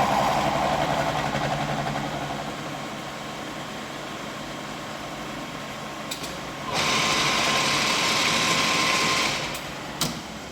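Milling machine running and cutting a steel valve coupling, loudest at first and easing off over the first few seconds. About seven seconds in, a steady hiss starts and lasts about two and a half seconds, followed by a sharp click.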